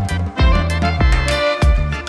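Upbeat background music with a steady, punchy beat and sustained melodic notes.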